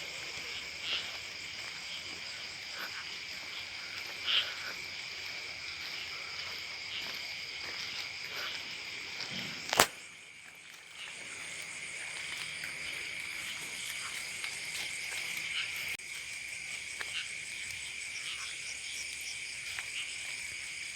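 Night chorus of crickets, other insects and frogs: a steady high shrill with scattered short calls. A sharp click comes about ten seconds in, after which the chorus briefly drops before returning.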